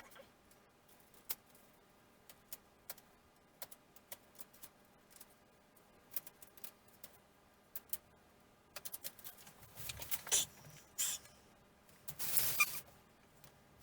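Scattered small clicks and taps of hands working with small parts and tools on a workbench, with a few longer scraping or rustling noises near the end.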